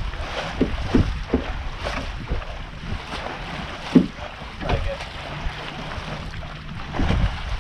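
Water slapping and splashing against a sailboat's hull as it moves through the water, in irregular knocks with the strongest about four seconds in, over wind on the microphone.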